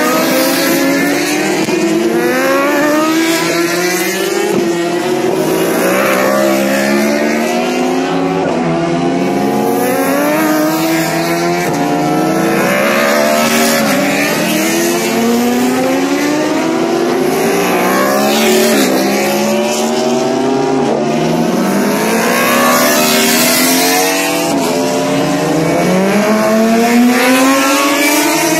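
Several superbike racing motorcycles on a road circuit, engines running at high revs as they ride through a bend one after another. Overlapping engine notes keep rising in pitch, cutting back and rising again as the bikes accelerate and shift up through the gears.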